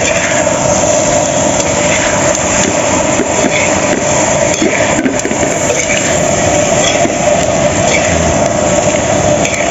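Steady roar of the cooking fire under a pan of boiled soft-shell turtle meat being sautéed and lightly fried, with small crackles from the pan.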